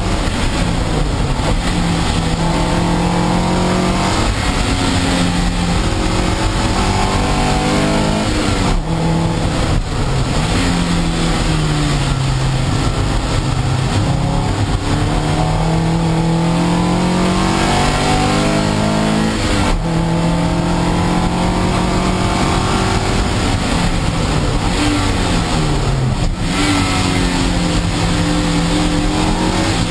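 Toyota MR2 race car engine heard from inside the cockpit, its note climbing and dropping again and again as the car accelerates, shifts and slows through the corners. A steady hiss runs underneath, and the note breaks off briefly a few times.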